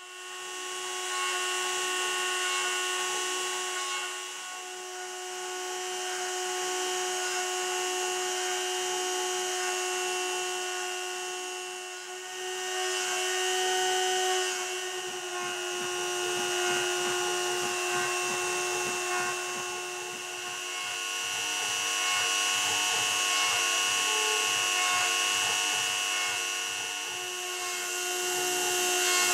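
A Dremel 300 rotary tool runs as the spindle of a homemade CNC router, engraving halftone dots into wood with a 45-degree engraving bit. It makes a steady high whine with several overtones. The loudness swells and dips every few seconds as the machine works.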